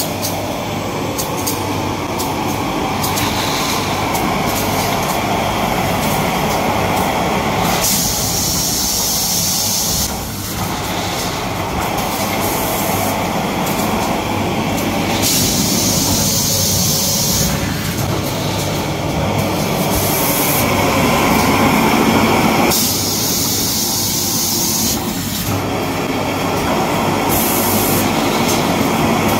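Paper roll bundle packing machine running at speed: a steady mechanical clatter, with a hiss lasting a second or two repeated every five to seven seconds.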